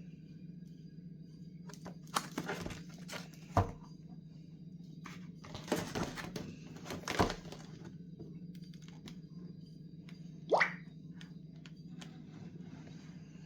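Hands handling the packaging and parts of a wireless doorbell chime kit: scattered clicks, knocks and rustles in a few clusters, and a short squeak about ten seconds in, over a steady low hum.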